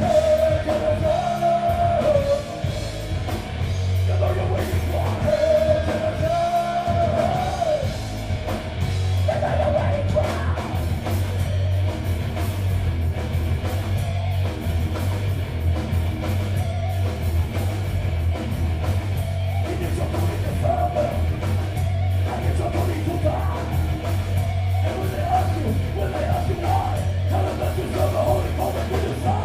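Heavy metal band playing live at full volume: distorted electric guitars, bass and drums, with a yelled vocal line over the first several seconds.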